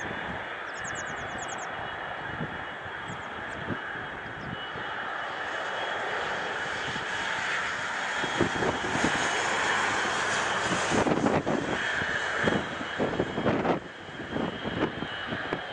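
Blue Angels F/A-18 Hornet jets taxiing, their twin turbofan engines running with a steady whine and rush. The sound grows louder about halfway through, with uneven low rumbling surges as the jets pass close.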